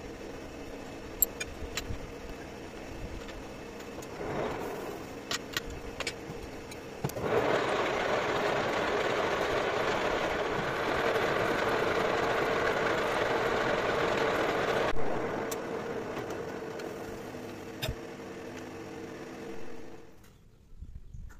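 Metal lathe running steadily. From about seven to fifteen seconds in, a louder cutting noise as the hexagon broaching tool is pressed into the spinning workpiece to cut a hexagon hole. A few light clicks, and the machine sound dies away near the end.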